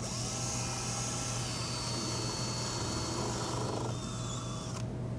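DeWalt 14.4-volt cordless drill running with its bit in the drawer box's bottom panel, countersinking and driving screws into the drawer face. It spins up at the start, runs for about four seconds, eases off, and stops about five seconds in.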